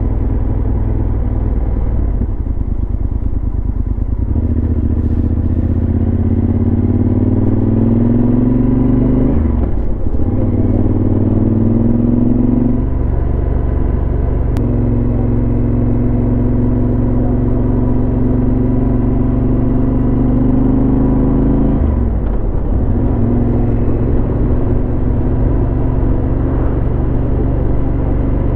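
Yamaha XT1200Z Super Ténéré parallel-twin engine through a Leovince SBK exhaust, ridden under acceleration. The pitch rises in runs, with dips at gear changes about a third of the way in, just under halfway and about three quarters of the way in, then it settles to a steady cruise.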